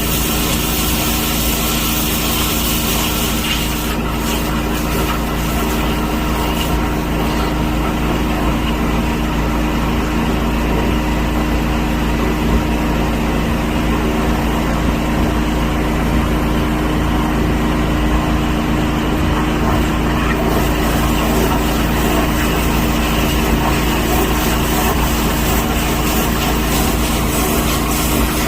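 A steady mechanical drone, like an engine running at a constant speed, with an unchanging low hum and fixed pitch throughout.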